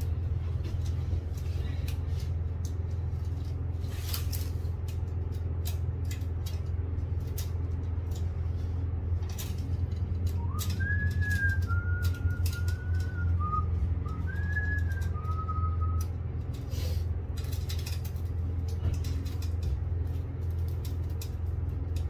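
Steady low hum, with light clicks and rustles as the buffer tubes and fibers in an open fiber-optic splice closure are handled. About ten seconds in, a few whistled notes rise and step up and down for about five seconds.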